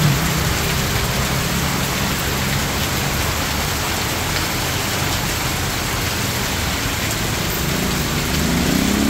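Heavy rain pouring down in a steady hiss on the road and nearby surfaces. A car engine note fades out at the start, and near the end another vehicle's engine rises in pitch as it speeds up on the wet road.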